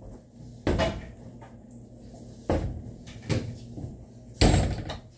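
Four separate knocks and clunks, the loudest about four and a half seconds in, from a door and a mop being handled.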